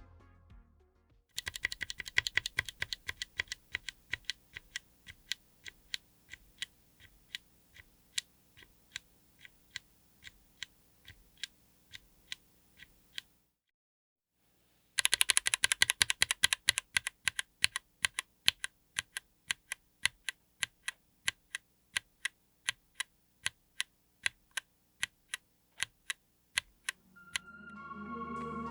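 Mechanical keyboard with TTC x Pantheonkeys PT Black linear switches, in an aluminium Tofu60 case with an FR4 plate, being typed on: a quick run of keystrokes, then single presses at an even pace of roughly two to three a second. After a brief silence about halfway through, the pattern repeats. Background music fades in near the end.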